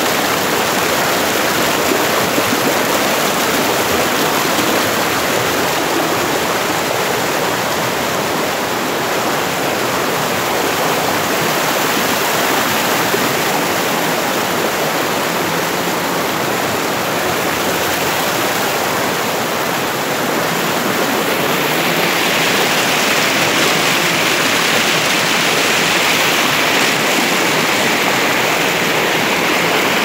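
Waterfall water pouring over rocks right at the microphone, a loud, steady rush of falling and splashing water that turns hissier about two-thirds of the way through.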